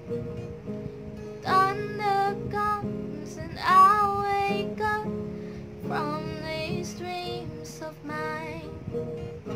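A young woman sings with her own acoustic guitar accompaniment. The guitar chords ring steadily, and her voice comes in about a second and a half in with several long, held phrases.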